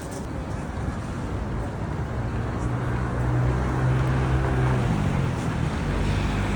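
Traffic noise with a vehicle engine's low steady hum that swells through the middle and then fades back.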